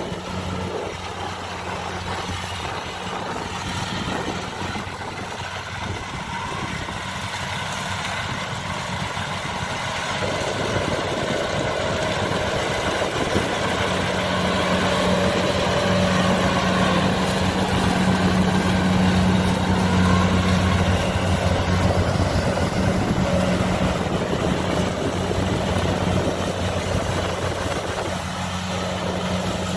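Kubota DC-70 combine harvester's diesel engine running steadily with a low hum, growing louder about halfway through and easing slightly near the end.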